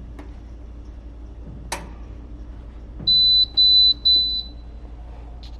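Three high-pitched electronic beeps in quick succession, each about half a second long, like an appliance timer signalling; a single light click comes about a second before them.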